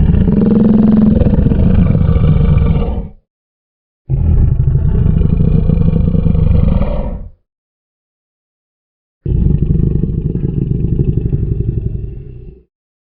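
Crocodile growling: three low, rough growls of about three seconds each, separated by a second or two of silence.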